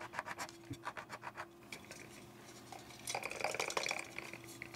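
A utility knife blade scraping the old foam surround residue off the rim of an 8-inch woofer in quick rasping strokes. About three seconds in, the speaker's metal basket clinks and clatters as it is turned over to shake out the loose bits.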